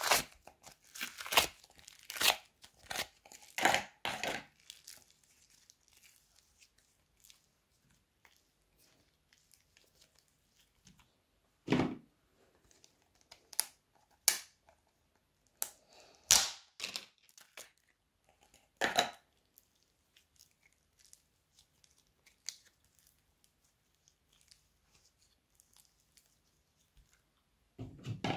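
Thick slime squeezed out of small plastic tubs, crackling and squelching while the plastic crinkles. A dense run of these sounds over the first few seconds, then only a handful of separate squishes and clicks with quiet between them.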